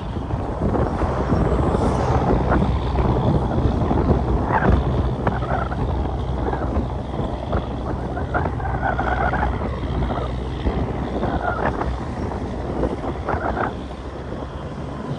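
Caterpillar 6NZ inline-six diesel in a Kenworth W900L running steadily, a low engine drone with rushing noise over it.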